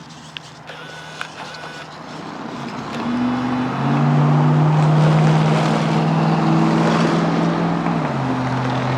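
A motor vehicle passing close by: its engine and road noise swell over the first few seconds, hold, and then drop in pitch at about eight seconds as it goes past.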